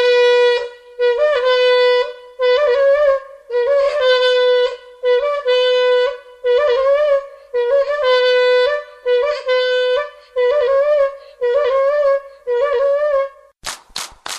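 A wind instrument plays a repeated call: short held notes on nearly one pitch, each opening with a quick upward flick, in about a dozen phrases with brief gaps between them. Near the end a scratchy percussion starts, about four strokes a second.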